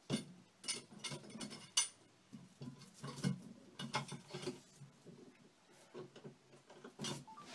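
Bar clamps being worked and tightened against a board on the wall: an irregular run of faint clicks and knocks from the clamp mechanism.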